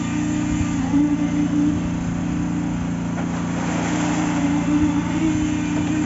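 An engine running steadily at a constant speed, giving a level low hum.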